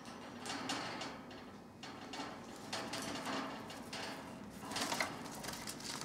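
Irregular scratching and rattling from a black wire bird cage as a baby turquoisine parrot clambers down its bars onto the newspaper-lined floor, claws scrabbling on metal and paper.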